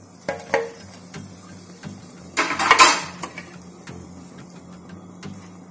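A metal utensil clinks against the kadhai and a steel plate as a fried batata vada is lifted out and set down on paper towel. A few sharp clicks come in the first second, and a louder, noisier handling sound comes about two and a half seconds in.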